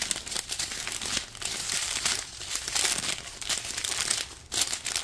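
Small clear plastic bags of diamond painting drills crinkling and rustling as hands handle and turn them over along their strip.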